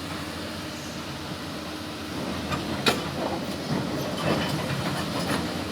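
Excavator's diesel engine running steadily while stones clatter and knock in the digging, starting about two seconds in, with one sharp knock near three seconds.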